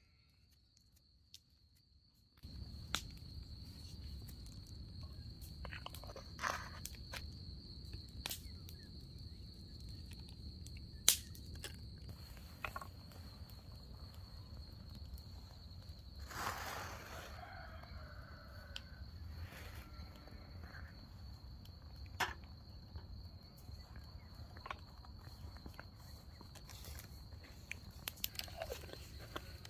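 Light clicks and taps from a small glass spice jar and hands seasoning lamb liver in a glass bowl, with one sharp click about eleven seconds in. Underneath is a steady low rumble and a constant thin high whine; the first two seconds are nearly silent.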